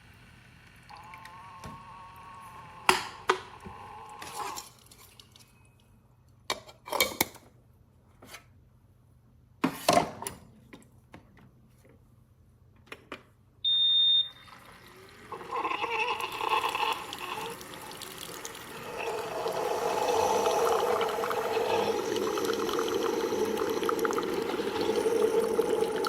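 Single-serve K-cup coffee maker being operated: a few clicks and knocks, a short electronic beep about fourteen seconds in, then brewing, with hot water pumping and gurgling into the cup, louder from about halfway through.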